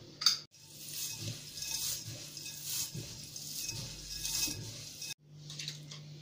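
Hands mixing dry rolled oats and seeds in a ceramic mixing bowl: a gritty, rustling stir lasting about four seconds, after a short sharp knock at the start.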